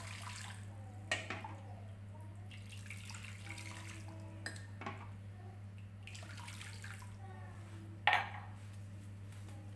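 Hot water sloshing and splashing in a frying pan as a plastic-wrapped PVC pipe is worked through it, with the crinkle of the plastic wrap. A couple of sharp knocks of the pipe or pan, the loudest about eight seconds in.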